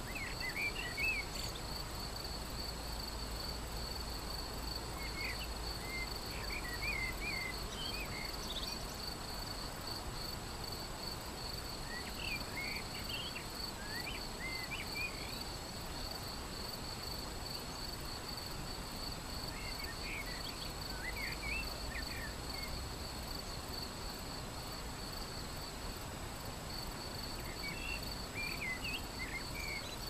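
Shallow river flowing over stones with a steady rushing. Over it a steady high, pulsing trill runs without a break, and a small bird sings short chirping phrases five times, roughly every seven seconds.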